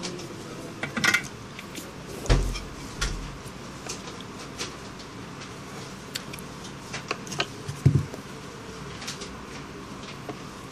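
Scattered light clicks and taps of small parts being handled, as fingers press a replacement SIM card slot into place on a BlackBerry Z10's circuit board, with two duller knocks, about two seconds in and near eight seconds.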